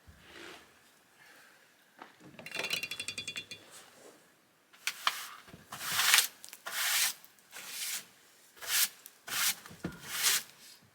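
A quick rattling run of ticks, then a series of short rubbing, scraping strokes, one after another.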